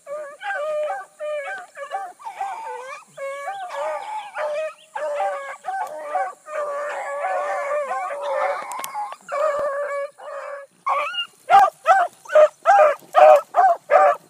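Pack of bluetick hounds baying as they run a rabbit's track, several voices overlapping in drawn-out bawls. About eleven seconds in, a closer hound takes over with loud, quick chop barks, about three a second.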